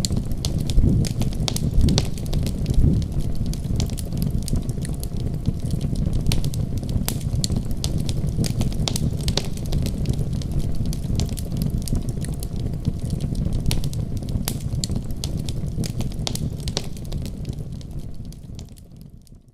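Fireplace fire crackling: a steady low rush with frequent sharp pops and snaps, fading out near the end.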